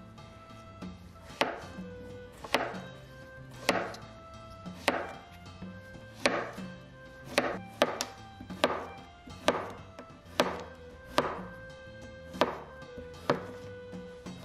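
Kitchen knife slicing zucchini into half-moons on a cutting board: a sharp chop of the blade onto the board about once a second, about fourteen in all, coming a little faster in the middle.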